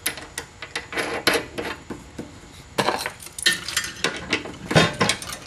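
Scattered light metal clicks and clinks of a countersink bit being handled and fitted into a drill press chuck, with a few bunches of clinks around three and five seconds in.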